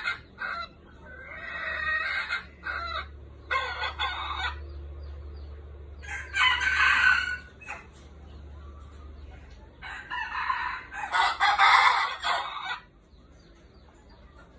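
Caged red junglefowl roosters crowing: several separate crows with pauses between, the loudest near the end.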